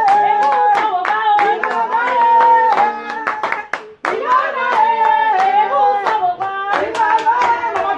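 People singing together to steady hand clapping, with a brief break in the sound about halfway through.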